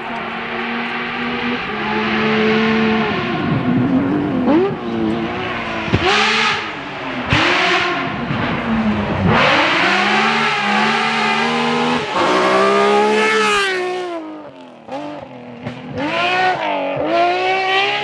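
Rally car engines revving hard on a gravel special stage, including a BMW 3 Series sedan passing close. The engine pitch climbs steeply and falls sharply again and again as the drivers change gear and lift off.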